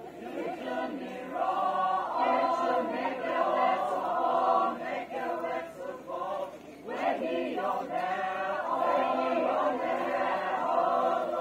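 A group of young voices singing a traditional dance song together in chorus, holding long notes. There is a short break between phrases about six and a half seconds in.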